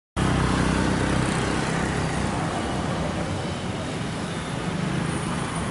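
Steady street traffic noise with a low engine rumble, cutting in suddenly just after the start.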